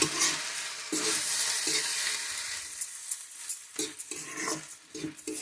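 Vegetable chowmein noodles being stirred and tossed in a hot pan with a spatula: a frying sizzle under irregular scraping and knocking strokes of the spatula against the pan, as the masala is mixed through.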